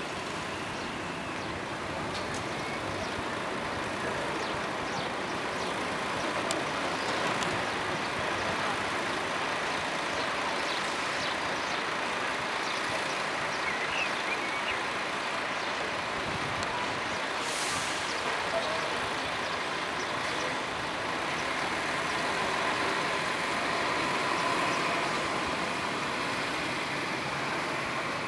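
Steady, even town traffic noise from the streets below, with a brief hiss a little past halfway.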